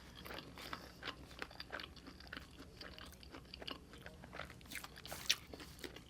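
Close-miked chewing of a mouthful of burrito: a steady run of small wet clicks and crunches, with one louder snap about five seconds in.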